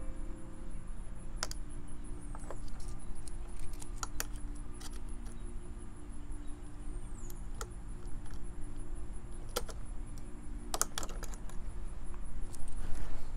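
Scattered light metallic clicks and clinks as an old wired doorbell button is taken off the wall, over a low steady hum.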